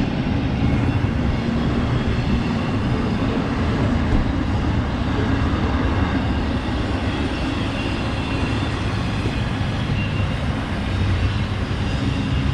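Steady rumble of a vehicle running, engine and road noise heard as from inside a moving truck.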